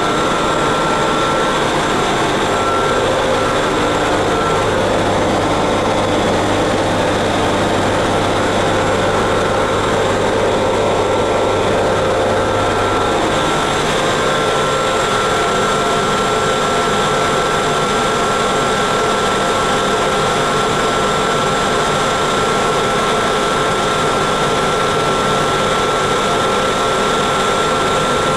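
Running equipment in the machine room of a series 461 electric locomotive: a steady, loud mechanical whir with a constant high whine. A low hum under it stops a little under halfway through.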